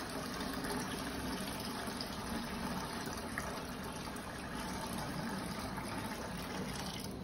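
Water pouring in a steady stream from a tipped mini aquarium into a plastic bucket: the tank's old water being emptied out before the tank is washed.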